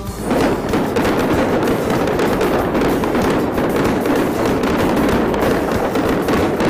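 Fireworks display: a steady, dense barrage of many overlapping bangs and crackles.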